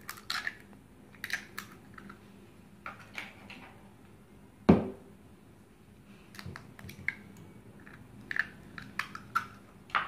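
Eggs being cracked into a ceramic bowl: scattered light clicks and taps of shell, with one louder knock a little before halfway.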